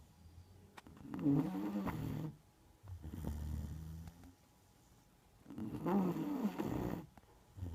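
Neapolitan mastiff snoring in its sleep: two loud snores about four and a half seconds apart, each followed by a softer, deeper breath.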